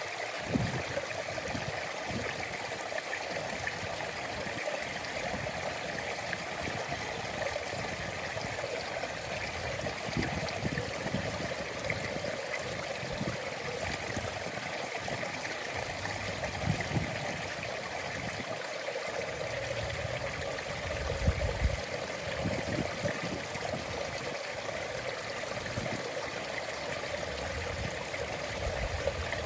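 A stream flowing and trickling steadily, with a few short low thumps about two-thirds of the way through.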